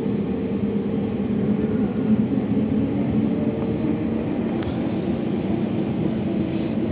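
Airbus A321neo's CFM LEAP-1A jet engines running steadily at low power, heard from inside the cabin as a loud, even drone with a steady hum over it while the aircraft taxis.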